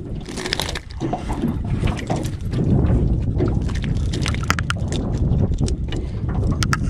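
Wind rumbling on the microphone over water lapping at the hull of an aluminium jon boat, with scattered light clicks and knocks, more of them in the second half.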